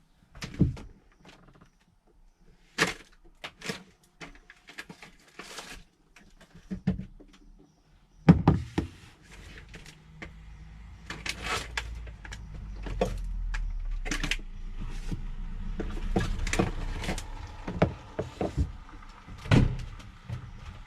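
A series of knocks and clunks, like doors and objects being handled. From about eight seconds in, a low steady rumble runs under further knocks.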